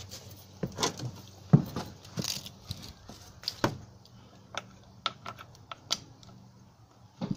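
Scattered clicks, taps and rattles of hands working the controls of a 1977 Suzuki DT9.9 outboard motor, twisting the tiller throttle grip and handling parts around the carburettor. There is a louder knock about a second and a half in. The engine is not running.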